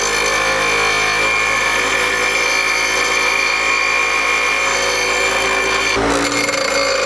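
Bench grinder running with the top of a car's suspension strut held against its wheel, grinding a metal ring down flush with the strut casing. The grinding stops about six seconds in as the strut is lifted away, and the wheel keeps spinning.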